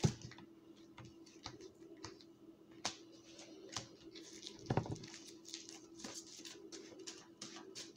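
Tarot cards being shuffled by hand and laid out on a table: soft, scattered flicks and light taps.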